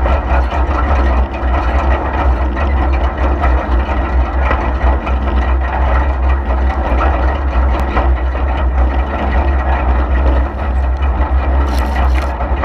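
Deutz D4506 tractor's air-cooled four-cylinder diesel engine running steadily with a deep low drone.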